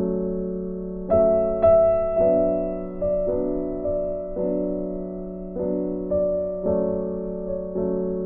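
Background music on a piano-like keyboard: notes struck about once a second, each fading before the next, over a steady low tone.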